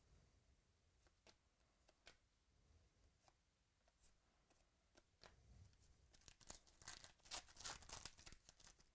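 Faint clicks and flicks of trading cards being handled. About five seconds in, a few seconds of crinkling and tearing of a foil trading-card pack wrapper.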